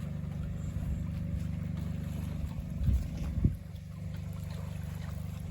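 A steady low engine-like hum, with two short thumps about three seconds in.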